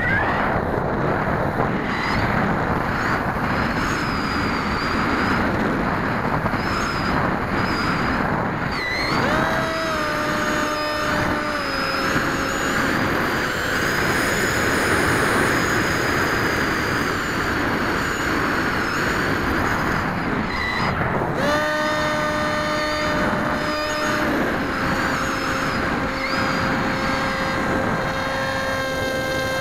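Electric whine of a 3000Kv brushless inrunner motor and propeller on a Zaggi flying wing in flight, heard through the onboard camera with heavy wind rush. At full throttle the rushing noise dominates. A clear steady whine settles in after a quick glide in pitch about nine seconds in and again about twenty-two seconds in, where the throttle is eased.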